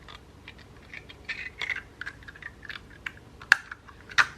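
Small engine parts and tools being handled on a workbench: scattered light clicks and taps, a short rustle about a second in, and two sharper clicks near the end.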